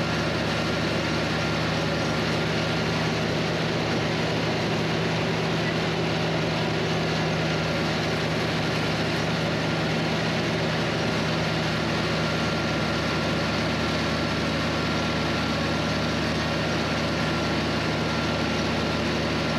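John Deere 3020 tractor's four-cylinder engine running steadily under load, driving a Bush Hog disc mower through hay.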